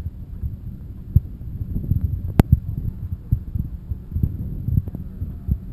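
Irregular low thudding and rumble of a camera being handled and buffeted, picked up right on its microphone, with one sharp click about two and a half seconds in.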